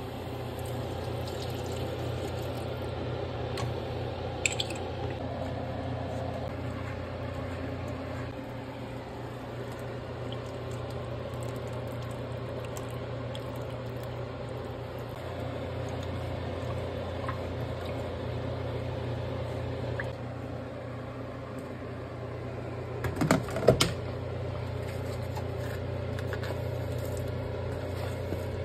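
Stovetop cooking: a steady low hum throughout, with whipping cream poured into a soup pot and a few light clicks, then a brief louder clatter about 23 seconds in.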